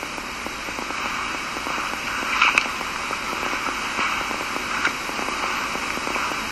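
Steady hiss full of fine crackle: the background static of a lo-fi lecture recording, with a couple of faint brief sounds about two and a half seconds in.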